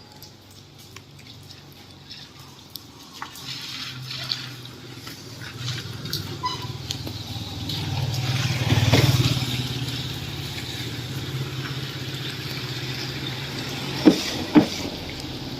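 A motor vehicle engine with a low, steady hum that grows louder to a peak about nine seconds in, then eases off. Two short sharp sounds come near the end.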